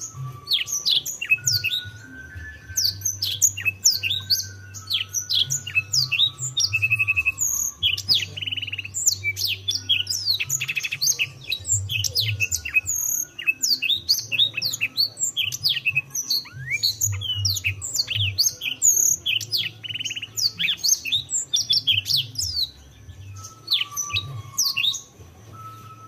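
Canary singing a long, fast song of rapid sweeping chirps and short buzzy trills, thinning out near the end.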